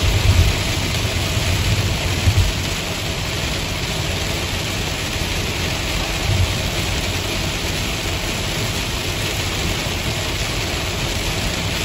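Heavy rain falling on a moving car's roof and windshield, heard from inside the cabin as a steady hiss over tyre and road noise. A few low thumps come in the first couple of seconds and once more about six seconds in.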